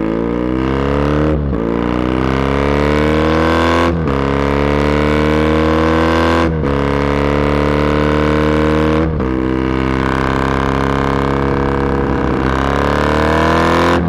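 Triumph Bonneville 865 parallel-twin engine through MGO cocktail-shaker exhausts with the baffles removed, pulling up through the gears. The engine pitch climbs steadily and drops at each upshift, four shifts about two and a half seconds apart, then holds nearly steady before climbing again near the end.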